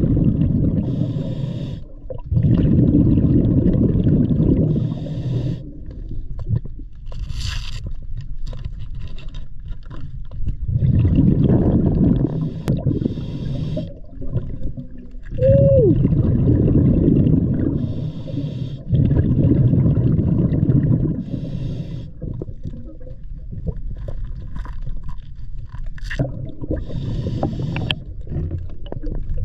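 Scuba diver breathing through a regulator underwater: several breath cycles, each a spell of low exhaled-bubble noise alternating with a short hiss of inhalation.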